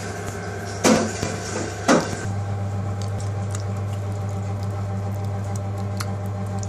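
Two sharp clanks about a second apart, then a steady hum with faint wet squelching as hands work king prawns through thick tandoori yoghurt marinade in a steel pot.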